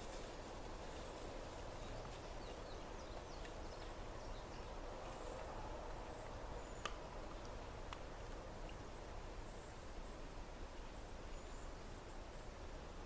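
Outdoor ambience: a steady faint hiss with a few soft bird chirps and two small sharp clicks in the second half.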